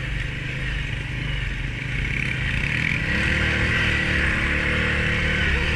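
Honda ATV's single-cylinder four-stroke engine running while riding, its note rising and getting louder about three seconds in as it speeds up.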